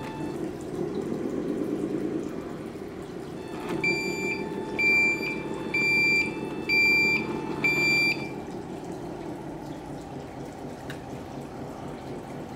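Tamiya 1/14 Mercedes-Benz Actros RC tractor's electronic sound unit playing a simulated diesel engine through its small speaker, swelling over the first couple of seconds. In the middle come five loud reversing-alarm beeps, about one a second.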